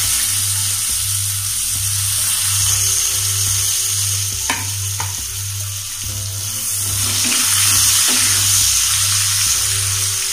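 Sliced shallots sizzling steadily in hot coconut oil in a nonstick pan as they are stirred with a wooden spatula. Two sharp clicks about halfway through.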